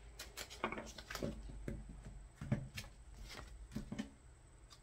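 Tarot cards being handled, with one drawn from the deck and laid down: faint scattered taps and clicks of card stock.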